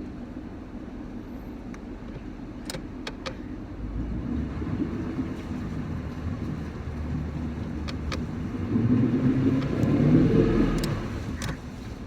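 Outboard engine running with a steady low hum. It gets louder about four seconds in and swells loudest near the end, with a few sharp clicks over it.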